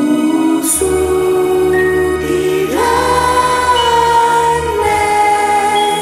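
Choir singing a slow song in Chinese over instrumental backing, with long held notes that slide up into pitch. A low bass comes in about a second in.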